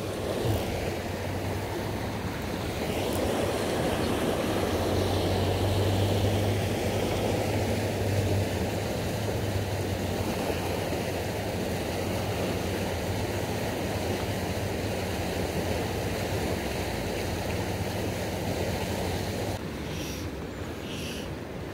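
Steady rushing of river water, white water pouring over a weir, heard as an even noise with a low rumble.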